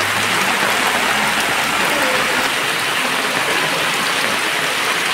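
Steady rain falling on a flooded street and the standing water, a dense, even hiss.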